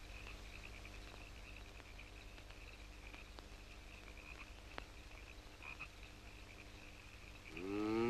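Faint night chorus of frogs calling in steady, repeated pulses over the low hum of an old film soundtrack. Near the end a rising, wavering musical tone begins.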